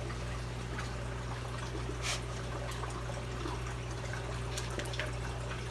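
Reef aquarium water circulating: a steady trickle of flowing water over a constant low pump hum, with a few faint clicks and small splashes from the hands and toothbrush working in the tank.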